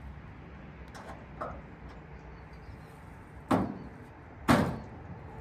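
A series of knocks or clunks: two faint ones about a second in, then two loud, sharp ones about a second apart in the second half.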